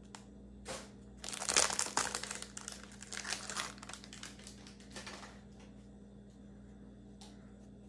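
Prizm football trading-card pack's wrapper crinkling as it is torn open and the cards are pulled out. It crinkles densely for about four seconds starting about a second in, then trails off into faint rustles.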